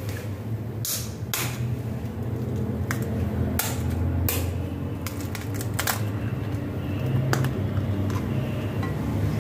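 An egg cracked against a glass mixing bowl: a series of sharp, separate taps and knocks spread over several seconds, over a steady low hum.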